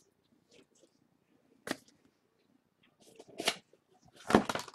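Handling noises: a sharp click, then a few knocks, and a louder thump near the end.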